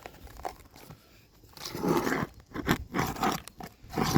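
Asphalt shingles being pried up off the roof deck, scraping and tearing in a run of irregular bursts that start about halfway in. The nails are pulling through and the shingles are ripping rather than lifting.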